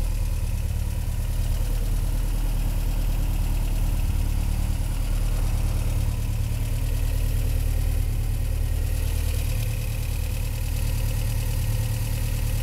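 Caterham Super Seven's four-cylinder engine idling steadily at a constant speed.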